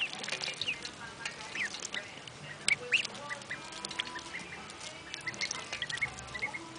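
Ducklings peeping in many short high calls, with sharp clicks and small splashes as they drink and dabble at a water dish; the loudest clicks come about three seconds in.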